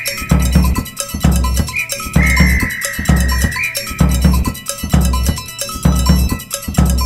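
Background music with a steady drum beat. A little over two seconds in, a long whistle note of about a second and a half sounds over it, dipping slightly in pitch and rising again at its end, as from a small whistle or call blown by mouth.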